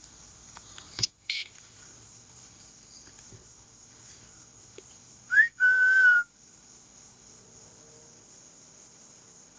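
A person whistling twice, a short rising note and then a held note, about five and a half seconds in, as a call to someone. Crickets chirr steadily throughout, and a few sharp clicks sound in the first second and a half.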